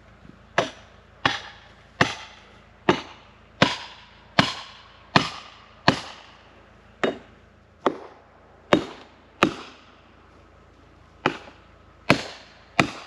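Heavy blows driving a felling wedge into the cut of a standing dead tree, about fifteen sharp strikes at a steady pace with a short ring after each, pausing briefly before the last three. The wedge is being pounded in to tip the tree over.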